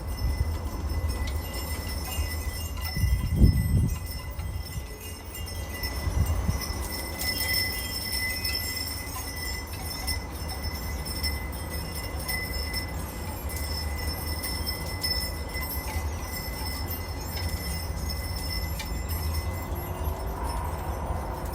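Wind chimes ringing in the breeze, their tones lingering, over a steady low rumble. There is a short low thump about three and a half seconds in.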